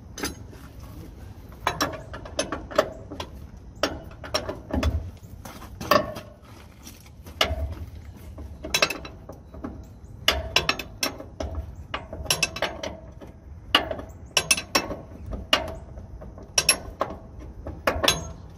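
Hand ratchet clicking in repeated short runs as it is swung back and forth on the top mounting bolt of a semi truck's front shock absorber, loosening the bolt while a wrench holds the nut.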